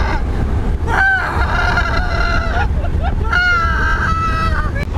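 A young man's high-pitched voice wailing in two long held, slightly bending notes, over the steady low rumble of a car driving on the highway.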